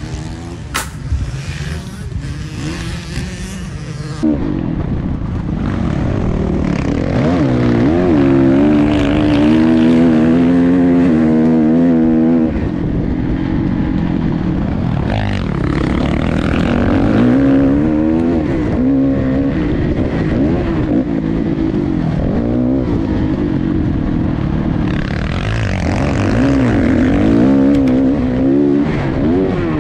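Motocross bike engine revving hard and close, its pitch rising and falling over and over as the throttle opens and closes. It cuts in loudly about four seconds in, after a quieter opening.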